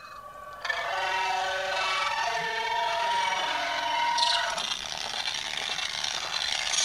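A song with a high singing voice holding long, wavering notes, played for a lip-sync recording.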